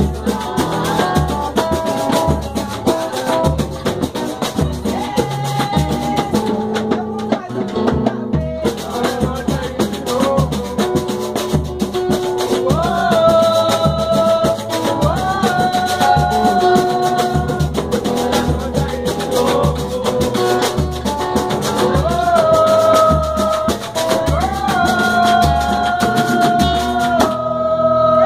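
Samba batucada: a percussion group drumming a steady beat, with singing over it in long held notes that scoop up into pitch.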